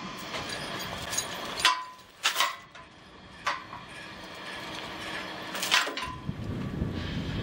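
Four or five sharp metallic clanks with a short ringing tone, over a steady engine hum that fades out after the first clank and comes back near the end.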